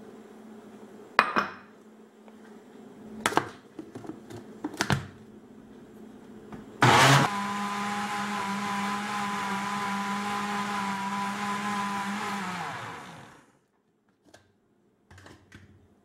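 A few light knocks, then a countertop blender starts with a loud burst about seven seconds in. It runs steadily for about six seconds, beating flour into cake batter, then winds down and stops.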